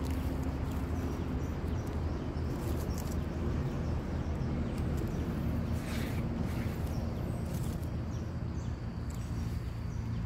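A steady low droning hum like a distant engine, with faint rustles and a few light clicks of hands and a small knife working in dry leaf litter.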